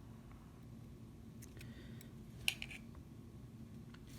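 Faint small clicks and light scraping from handling the phone's small internal parts, with one sharper click about two and a half seconds in.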